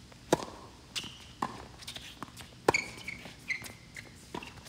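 Tennis balls being struck by racquets and bouncing on a hard court during a doubles rally: a second serve hit about a third of a second in, then sharp pops every second or so as the ball goes back and forth, the loudest about two-thirds of the way through.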